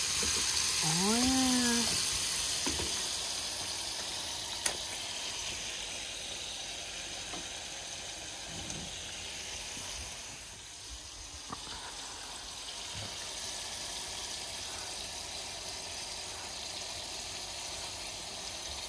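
Battered walleye and perch pieces deep-frying in a pot of hot oil: a steady sizzle, strongest in the first couple of seconds just after the fish go in, then settling to a quieter fizz. A short vocal sound rising then falling in pitch comes about a second in, and a single sharp click about five seconds in.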